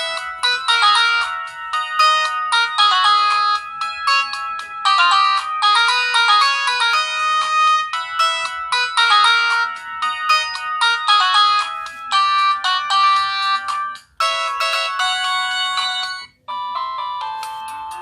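Samsung Gravity 2 (SGH-T469) mobile phone playing a polyphonic melody ringtone through its loudspeaker: a quick run of bright notes. Late on the tune breaks off twice briefly, and a different ringtone starts near the end.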